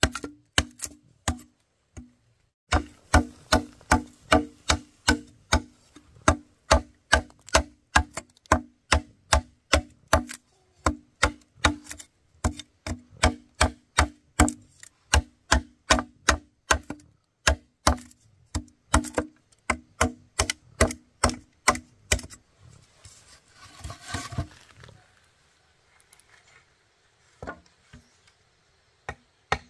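Rapid, repeated chopping strikes on bamboo, about two to three a second, each with a short ringing note. They break off for a few seconds near the end, with a brief rustle, then a few more strikes.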